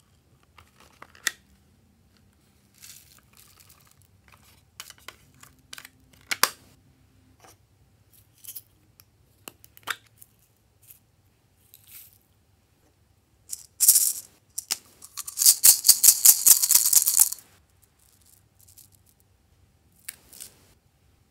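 Plastic containers clicking and tapping as they are handled and opened, then foam beads and sequins rattling in a clear plastic cup as they are shaken out onto slime, a loud rapid rattle lasting about two seconds past the middle.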